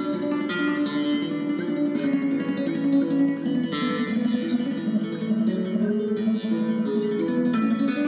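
Background music: a melody picked on acoustic guitar, one plucked note after another.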